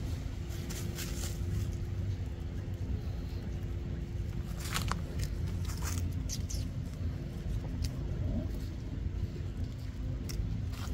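A steady low rumble, with a few short dry crackles of dead leaves as a baby monkey picks them up and handles them on the leaf litter.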